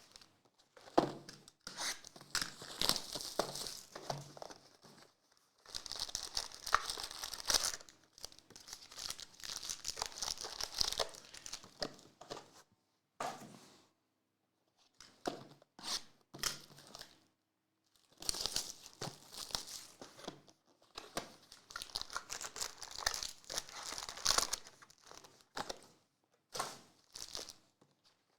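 Plastic wrapping on trading card boxes and packs being torn open and crinkled by hand, in rustling stretches of a few seconds each with short pauses between them.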